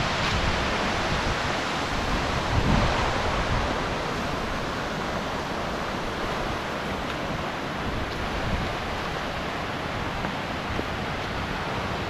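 Large waterfall rushing steadily, an even wash of falling water. Wind gusts on the microphone add low buffeting during the first few seconds.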